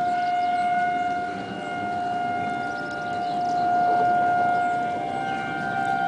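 Outdoor tornado warning sirens sounding a steady tone, slowly swelling and fading in loudness, signalling a tornado warning. About five seconds in, a second, slightly higher-pitched siren tone joins.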